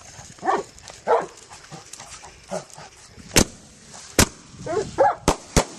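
A dog barking several times, while a firework goes off with four sharp bangs in the second half, the first two the loudest.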